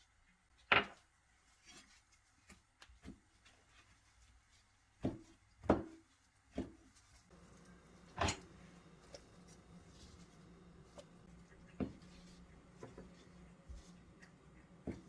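Kitchen knife cutting pineapple rings on a plastic cutting board: a handful of sharp, irregular knocks as the blade strikes the board. Near the end the knife cuts through a boiled egg onto the board, and a faint steady low hum runs under the second half.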